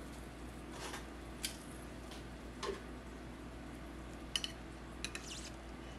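Metal kitchen tongs clicking and clinking lightly as food is served onto a plate: a few separate ticks, with quick little clusters of clicks in the second half, over a steady low hum.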